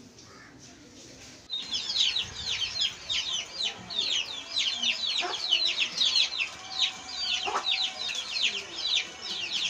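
Many birds chirping: a dense, unbroken run of high, quick chirps, each sliding down in pitch, several a second and overlapping, starting suddenly about a second and a half in.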